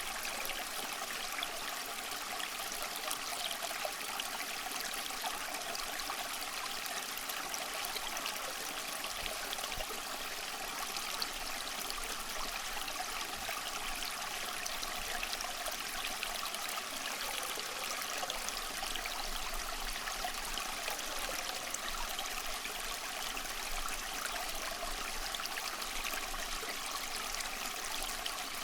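Stream water running and trickling steadily, with small splashes and bubbling.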